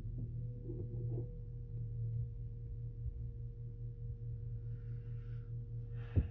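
Vacuum cleaner running upstairs, heard muffled through the ceiling as a steady low drone with a thin steady tone above it. A single sharp thump near the end.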